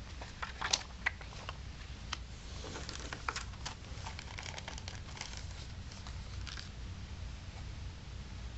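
Handling noises of a CD package: a paper lyric booklet being closed and a disc drawn from its clear plastic inner sleeve, giving scattered crinkles, rustles and small clicks. The handling dies away after about six and a half seconds.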